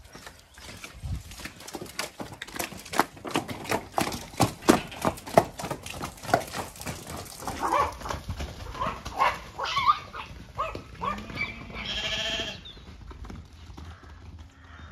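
Horses' and a pony's hooves striking the ground as they trot out of the shed: a rapid, irregular run of knocks through most of the first nine seconds. Near the end come a few short bleats.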